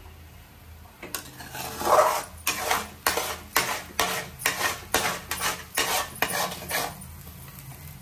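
Metal slotted spoon scraping and stirring scrambled egg around an aluminium kadai, a quick run of scrapes about two or three a second. It starts about a second in, is loudest near the start, and stops near the end.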